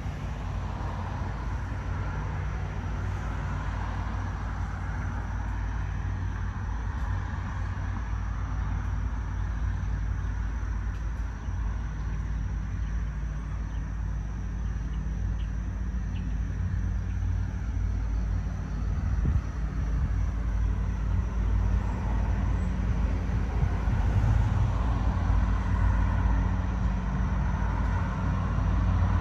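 Diesel locomotive running with a steady low rumble, growing louder in the second half.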